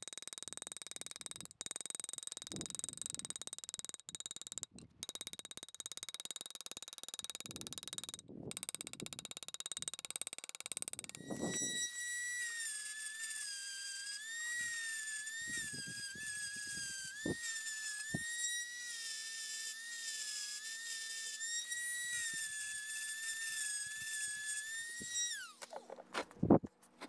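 For the first ten seconds or so there is a steady hiss with brief dropouts. Then the high-pitched whine of a Dremel-style rotary tool with a small abrasive stone grinds the cast-iron frame of an arbor press, its pitch dipping and recovering as it bears on the metal. Near the end it winds down and stops.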